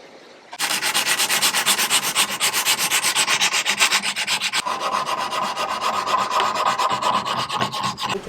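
Sandpaper rubbing on a wooden knife handle in rapid, even back-and-forth strokes, shaping and rounding the handle. It starts about half a second in, changes tone about halfway through and stops just before the end.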